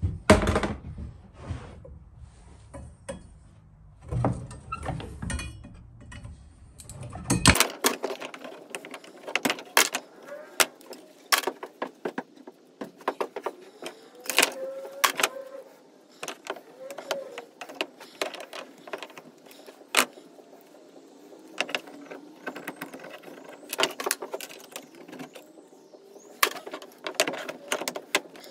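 Scrap brass-and-copper TXV valves, copper tubing and steel pliers clinking and clicking as they are handled and set down on a wooden floor, in irregular sharp knocks.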